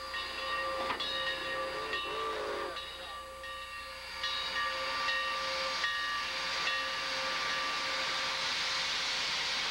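Southern Pacific 786, a 2-8-2 Mikado steam locomotive, hissing steam with a steady whistling tone that drops out briefly several times. The hiss grows louder from about four seconds in.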